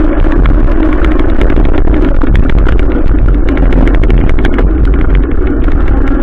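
Adventure motorcycle being ridden in the rain: a loud, steady engine-and-riding rumble with many short, sharp ticks throughout.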